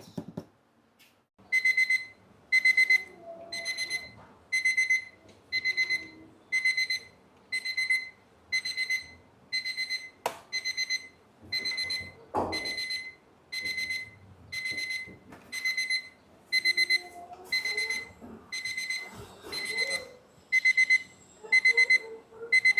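Digital alarm-clock beep tone played as a phone ringtone: short clusters of rapid, high-pitched beeps repeating about once a second. It starts about a second and a half in, with a sharp click around ten seconds in.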